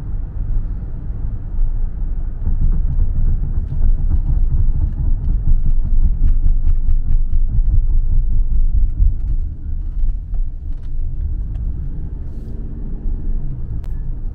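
Steady low rumble of a moving taxi, heard from inside the cabin: road and engine noise. It swells for several seconds in the middle and then eases off.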